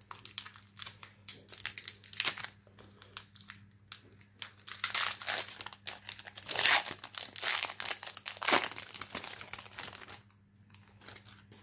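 Foil trading-card booster pack being pried and torn open by hand, the wrapper crinkling and crackling in rapid bursts, loudest a little past the middle, then falling quiet as the cards come out.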